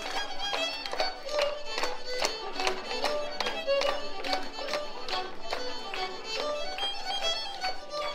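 Live fiddle playing a lively dance tune, with sharp rhythmic taps keeping time with it.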